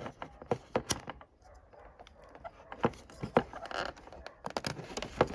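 Irregular sharp clicks and small knocks of a wiring clip being pushed and fumbled into its mount by hand, several attempts without a clean snap.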